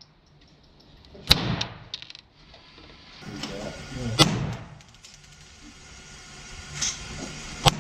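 Three loud gunshots about three seconds apart, each a sharp crack with a short tail, and a fainter report shortly before the last.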